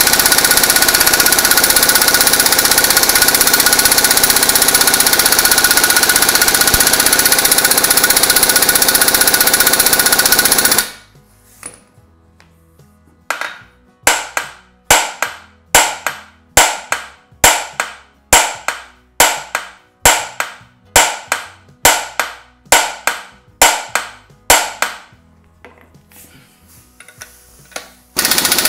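Impact wrench hammering continuously for about eleven seconds as it runs up the centre bolt of a flywheel puller. After a short pause come about twenty sharp hammer blows, roughly two a second, on the puller to shock the flywheel loose from the crankshaft taper.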